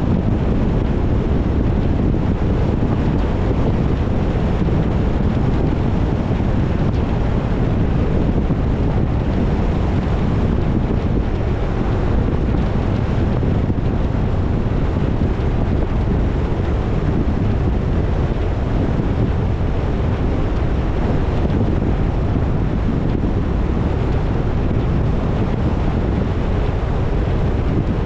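Steady rush of wind on the microphone and road noise from a moving car, strongest in the low rumble and unchanging throughout.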